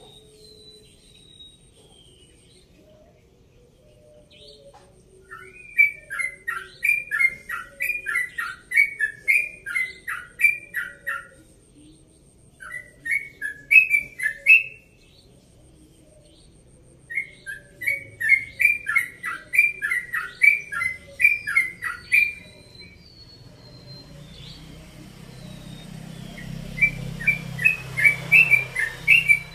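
Yellow-vented bulbul (trucukan) singing its rapid-fire 'ropel' song: long fast runs of short chirps lasting several seconds each, separated by pauses. Fainter calls of other birds sound in the background, and a low rumble builds near the end.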